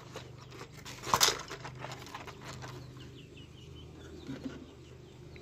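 Clicks and clatter of a black plastic toy rifle's parts being handled and fitted together, loudest in a quick cluster about a second in.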